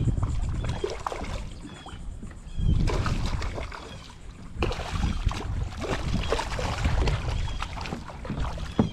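A small hooked snook thrashing and splashing at the water's surface beside a small boat, with uneven splashes, over gusty wind rumble on the microphone.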